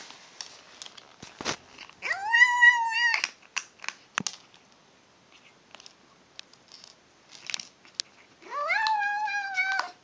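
Kitten crying out twice while eating dry kibble: two long, high, drawn-out meow-like calls, one about two seconds in and one near the end, with short crunching clicks between them.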